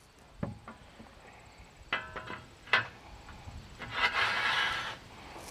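Metal rack pieces being handled: a few light knocks and clinks, then about four seconds in a second-long scraping as a frame piece slides and is lifted.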